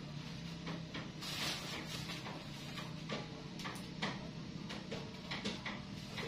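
Small knife paring a green eggplant held in the hand: a string of short, irregular clicks and scrapes.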